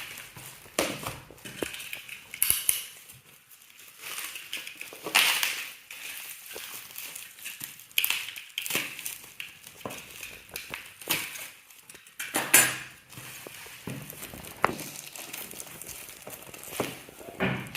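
Packaging being opened and handled by hand: irregular rustling and scraping with scattered clicks and knocks, and louder rustles about five seconds in and again around twelve seconds.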